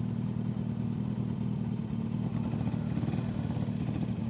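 Honda GB350's air-cooled single-cylinder engine running steadily at low revs, close to the rider's helmet microphone.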